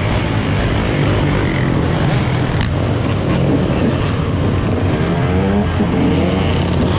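Several dirt bike engines running together in a street pack, one of them revving up in pitch about five seconds in.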